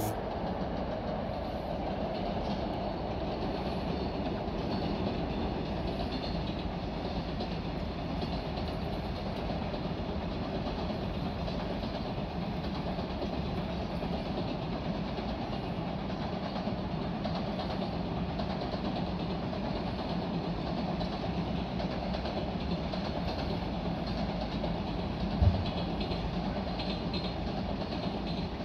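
Long freight train hauled by an electric locomotive crossing a steel railway bridge: a steady, continuous rumble of wagons rolling over the girders. There is a single short thump near the end.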